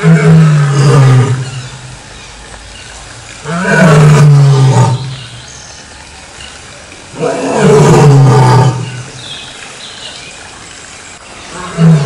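Male lion roaring: three long, loud roars about four seconds apart, each sliding slightly down in pitch, with a fourth starting at the very end.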